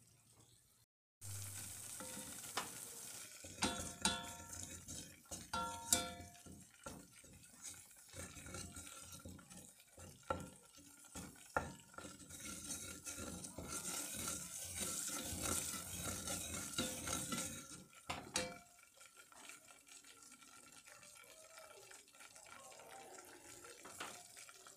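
Butter and flour roux sizzling in a metal pot while a spoon stirs it, with repeated scraping strokes against the pot. The sizzle and stirring ease off after about eighteen seconds.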